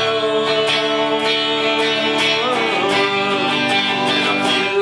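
Guitar strummed steadily while a man sings in long held notes that bend in pitch now and then.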